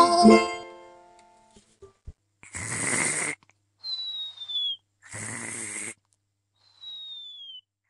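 Cartoon snoring sound effect: two snores, each followed by a short whistle that falls in pitch. A musical chord fades out in the first second.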